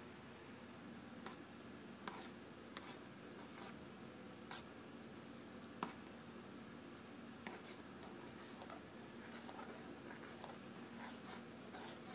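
Spoon stirring cake batter in an aluminium saucepan, with faint irregular clicks and scrapes as it knocks and drags against the pan's side, the sharpest about six seconds in, over a faint steady hum.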